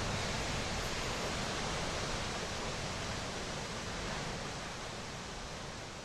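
Steady rush of flowing water, an even hiss with no distinct splashes, slowly fading out.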